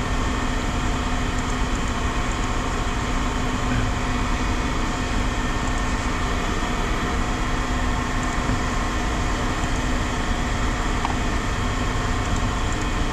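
A machine's engine running steadily: a constant drone with an even hum.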